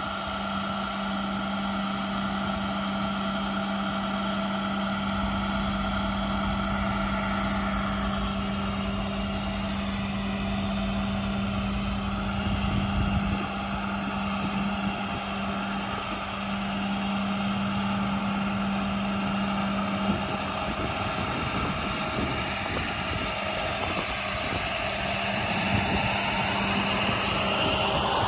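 International 7400 truck's diesel engine running steadily, driving the crane's hydraulics as the Elliott sign-crane boom is lowered and stowed. A steady hum carries through until it drops out about two-thirds of the way through.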